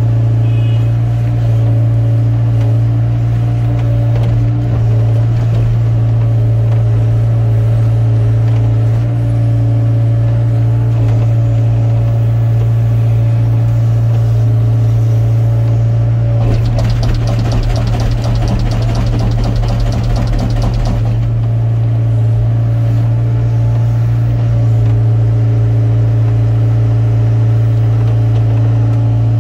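Hyundai hydraulic excavator's diesel engine running steadily with a deep hum. A fast rattling pulse breaks in for about four seconds past the middle, then the steady running resumes.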